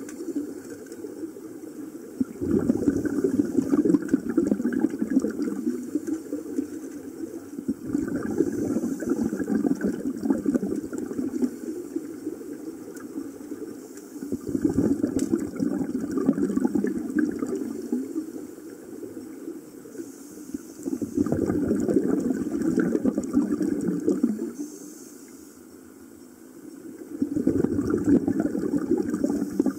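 Scuba regulator exhaust bubbling underwater: a diver's exhaled air rushes out as a bubbling burst about every six seconds, five breaths in all, with quieter pauses between while the diver breathes in.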